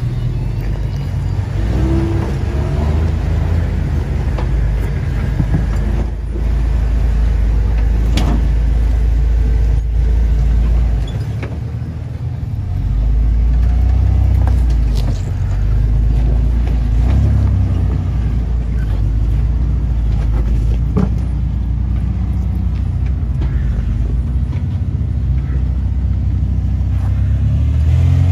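Lifted off-road pickup trucks' engines running and revving at low speed as they crawl over boulders, a deep rumble that rises and falls with the throttle. A few sharp knocks are heard along the way.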